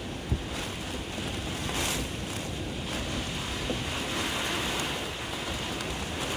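Steady rushing noise of typhoon wind and water, swelling briefly about two seconds in.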